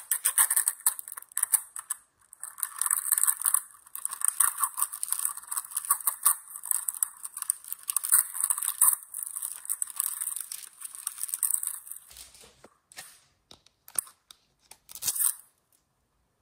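Thin plastic film and sticker seal crinkling and tearing as they are peeled off a plastic capsule ball, a steady crackle for about twelve seconds, then a few scattered crinkles and taps that stop a second before the end.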